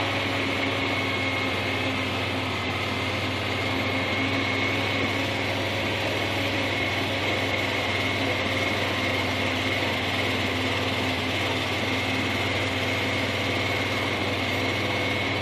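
A motor running steadily at constant speed, with a steady high whine over its hum.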